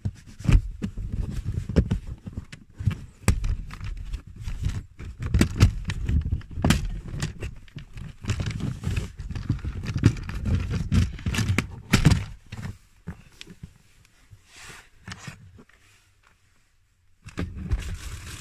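Plastic trim cover on the passenger side of a Peugeot 308 II's centre tunnel being pulled off by hand: a run of sharp clicks and knocks as its clips let go and the plastic rubs and scrapes, with the last loud knock about twelve seconds in.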